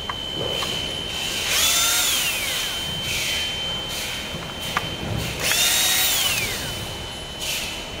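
Cordless drill-driver unscrewing the screws of an electric scooter's front fork cover. It runs twice: each time the motor whines up quickly, holds for about a second, then falls in pitch as the trigger is released.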